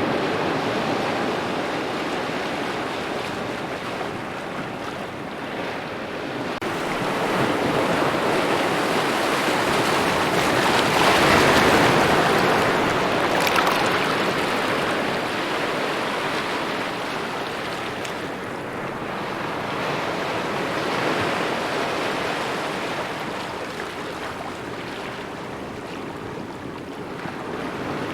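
Small waves lapping on a shore, a continuous wash that swells and ebbs slowly, with one stronger surge about halfway through.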